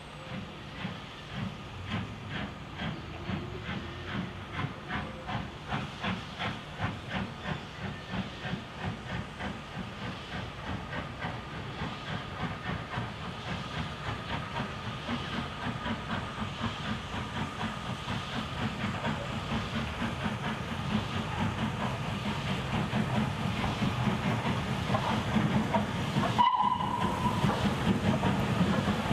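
Steam locomotive working hard as it approaches with a train, its exhaust chuffing in a regular beat of about two a second over the hiss of steam, growing louder as it nears. A short whistle sounds near the end.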